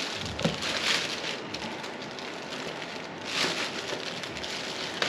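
Packing material rustling and scraping as a scroll saw is lifted and handled out of its box, with louder bursts about a second in and again about three and a half seconds in.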